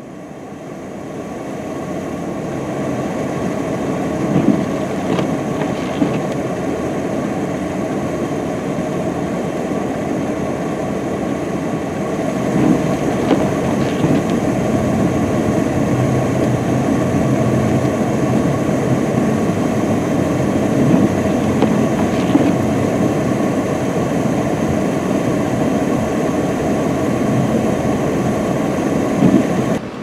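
UPS delivery truck's engine working hard under throttle while its rear wheels spin in deep snow, a steady rumbling drone, with a few brief knocks scattered through it.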